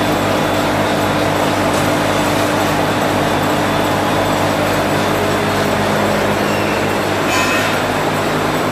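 A room full of cotton carding machines running together: a loud, steady mechanical drone with several steady low hum tones, and a brief higher-pitched squeak about seven seconds in.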